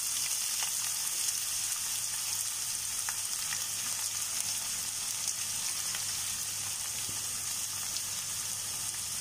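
Chopped onions frying in hot oil in a steel pan, freshly added and starting to sauté: a steady sizzle with a few faint crackles.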